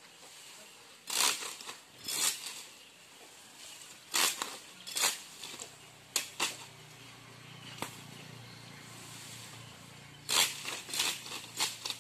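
Green coconut palm frond rustling and its leaflets tearing in short, sharp bursts as they are stripped from the frond, with gaps between strokes and a quicker run of them near the end.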